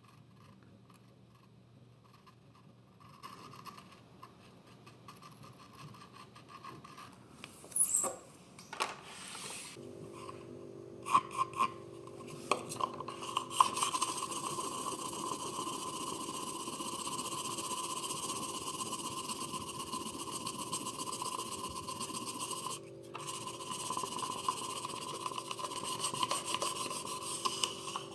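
Rasping and rubbing on a ceramic floor tile during repair work, with a few sharp clicks, then a steady whirring sound that joins about ten seconds in and stops briefly near the end.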